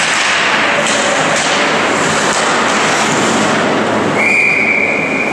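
Ice hockey play: skates scraping and sticks and puck clacking on the ice, with a few sharp knocks in the first half. About four seconds in, a referee's whistle blows one long, steady high note that stops play.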